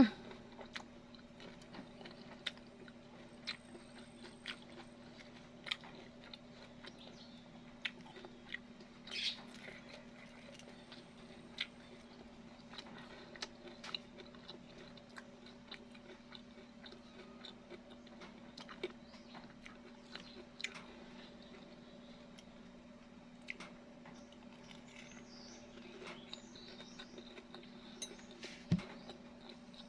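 Close-up chewing and biting of breaded fried food, with scattered crunches and small mouth clicks, over a faint steady hum.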